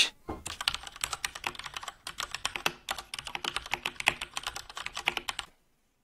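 Rapid typing on a HyperX mechanical keyboard with red linear switches: the keystrokes are plastic-sounding clacks of the keys bottoming out, with no click partway down the travel. There is a short pause about two seconds in, and the typing stops shortly before the end.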